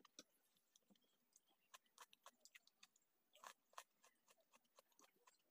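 Faint, close-up mouth sounds of a person chewing a mouthful of noodles: irregular soft wet clicks and smacks, with a louder pair about three and a half seconds in.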